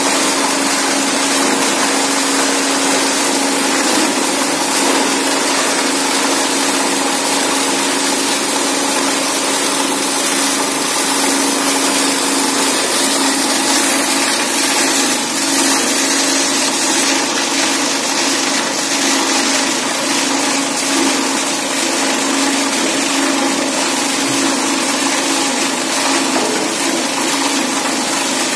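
Electric PET bottle grinder running steadily: a constant hum under a loud, even rush of noise from the rotor and cutting chamber.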